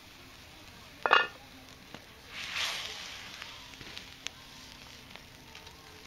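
A sharp metallic clank about a second in, then bacon-wrapped prunes hitting a hot cast-iron skillet over a campfire and sizzling in a swell that fades, with small crackles and pops from the wood fire.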